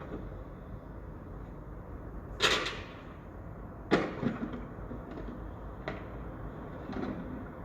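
Construction-site sound: a steady low rumble with intermittent bangs and knocks. The loudest bang comes about two and a half seconds in, a sharp one about four seconds in, and lighter knocks follow.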